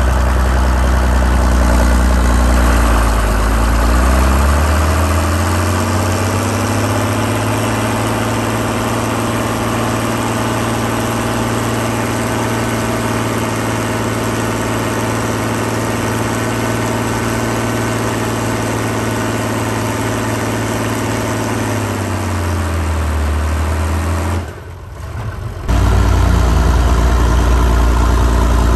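Oliver 1850 tractor's six-cylinder diesel engine revving up over the first few seconds and running hard and steady under heavy load while dragging a dead-weight sled. About 22 s in the revs drop, and after a brief break the engine is running again at lower revs.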